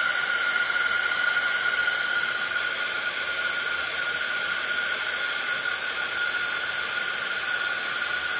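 Embossing heat gun running steadily while melting embossing powder on card: a constant rush of blown air with a steady whine from its fan.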